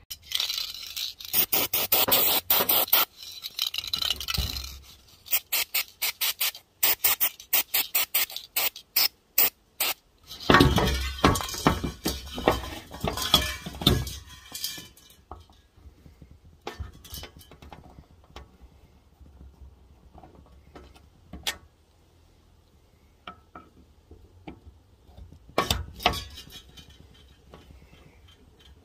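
Hand work on a seized carburettor being stripped for cleaning: metal parts clinking, tapping and scraping. Stretches of hissing noise and a rapid run of sharp clicks come in the first half, then scattered single ticks.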